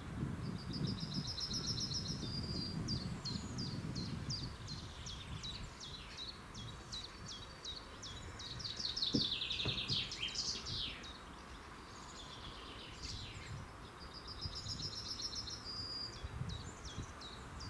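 Songbirds singing: a fast trill near the start and again near the end, with many short chirps between, over a low steady rumble of background noise.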